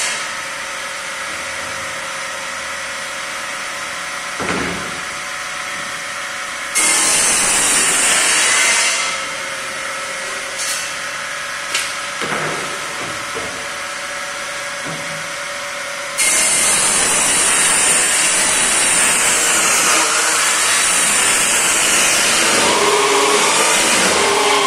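Table saw with a circular blade spinning freely with a steady hum, then cutting through sheet panels twice. The cuts come in suddenly: a short one about seven seconds in, and a longer one from about sixteen seconds on with a falling high whine. A few knocks of panels being handled fall between the cuts.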